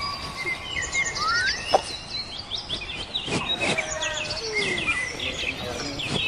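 A busy chorus of animal calls: many overlapping high chirps, whistles and short rising and falling calls over a steady outdoor background.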